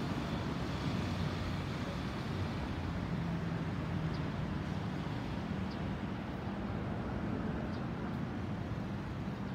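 Airbus A320-216's CFM56 jet engines heard from the ground as the airliner moves away after passing overhead: a steady low rumble that slowly fades.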